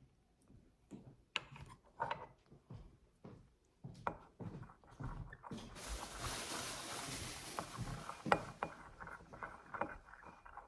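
Glue and slime activator being stirred in a bowl: scattered light scrapes and clicks, with a steady hiss lasting a couple of seconds from about halfway in.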